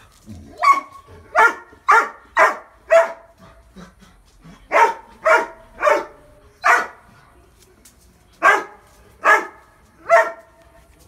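A dog barking in three bouts of five, four and three loud barks, about two a second, with short pauses between bouts.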